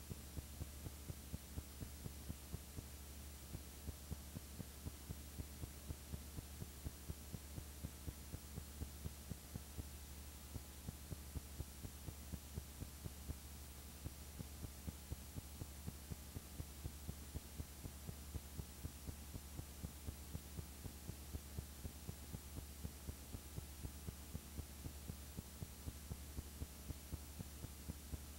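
Faint steady low hum with a light regular tick about three times a second, and no other sound.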